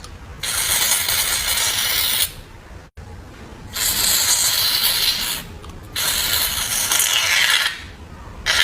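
Aerosol foam can spraying foam onto slime in three hissing bursts of about two seconds each.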